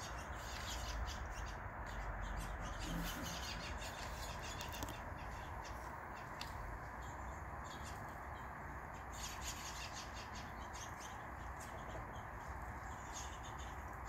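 Small birds chirping and calling around a backyard feeder in quick clusters of short, high notes, over a steady background hiss.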